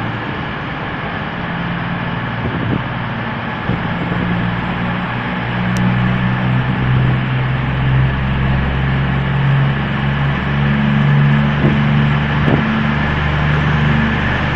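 CrossCountry Voyager diesel multiple unit coming in along the platform, its underfloor diesel engines making a steady low hum that grows louder as the train draws alongside, with a few faint knocks near the end.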